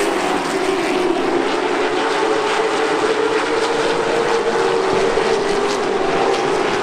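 V8 engines of NASCAR late model stock cars running at racing speed around the track, a steady loud drone that holds nearly one pitch.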